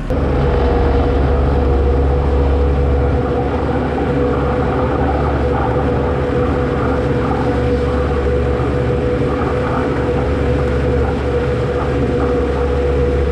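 Skid-steer loader running steadily under load, with a constant whine over a low engine drone, as its bucket scrapes manure along a barn alley.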